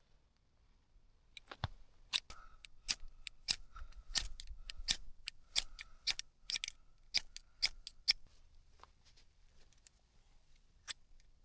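A series of sharp, irregular snaps and clicks, roughly two a second, as a dead campfire is restarted with paper and kindling; they thin out near the end and then start again.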